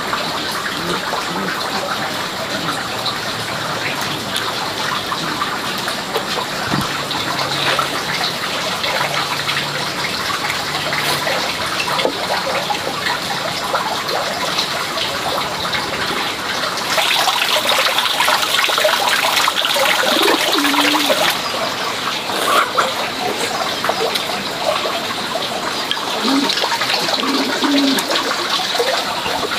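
A steady rushing noise of running water, growing louder and brighter for a few seconds past the middle.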